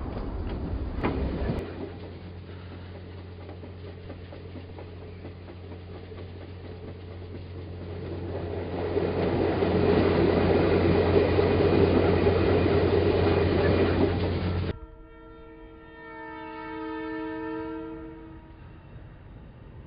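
N scale model freight train running past: light wheel clicks over the rail joints at first, then a steady low hum and rolling rattle that grows louder as the diesel locomotive goes by, until it cuts off suddenly. Then a multi-note chord horn sounds for about three seconds.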